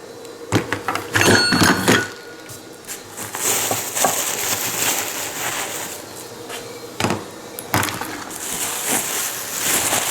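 Replacement UTV parts being handled: a quick run of knocks and clicks with a short squeak in the first two seconds, then a longer stretch of rustling, with a few single knocks.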